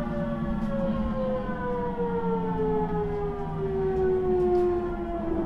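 JR Central 373 series electric multiple unit heard from inside the car: the traction motor whine falls steadily in pitch as the train slows under electric braking, over a low running rumble. The whine dies away near the end.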